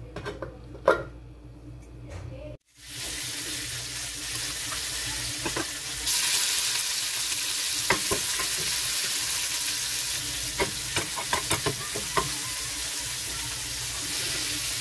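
Sliced onion and tomato sizzling in oil in a frying pan, stirred with a spatula that scrapes and taps against the pan. The sizzle starts a few seconds in after a few light knocks, and grows louder a little later.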